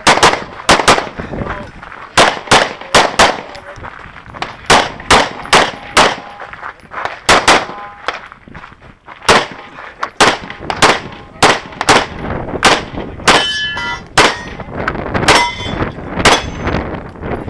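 Strings of pistol shots, mostly in quick pairs, from a PT Honcho (Phoenix Trinity) Open-division race pistol shooting major loads. Steel targets ring after several hits near the end.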